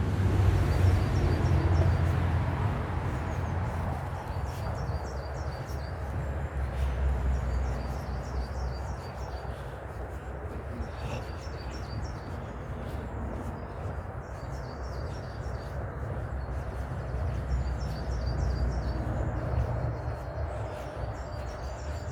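Small birds singing repeated short chirping phrases, over a steady low rumble.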